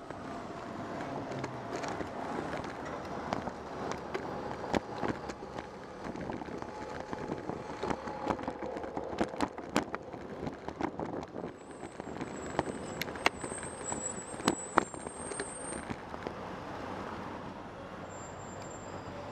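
City traffic noise and wind heard from a camera mounted on a moving bicycle, with many sharp clicks and rattles from the bike and camera mount over the pavement. After the middle, a thin high squeal lasts a few seconds as the bike slows behind traffic.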